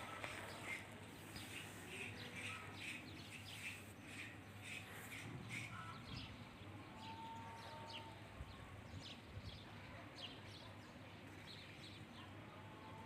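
Faint chirping of small birds: a quick run of many short chirps through the first half, sparser and more scattered after.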